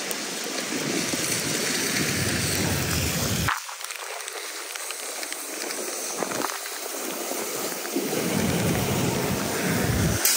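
Heavy rain falling on a city street, a steady, even hiss. A deeper rumble swells up under it twice, breaking off suddenly about three and a half seconds in.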